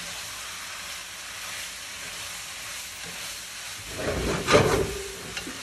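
Stir-fried noodles with shrimp and vegetables sizzling in a hot pan, a steady hiss. About four seconds in, a louder spell of about a second as a wooden spatula stirs and tosses the noodles against the pan.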